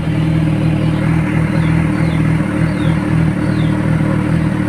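Kawasaki Ninja 1000SX inline-four idling steadily through a Yoshimura R77 slip-on muffler, warming up after a cold start before being revved.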